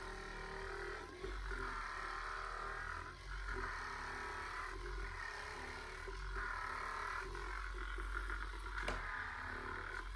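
VibroSculpt handheld electric massager running with its head against bare skin: a steady motor hum that swells and fades in a regular cycle of about two seconds.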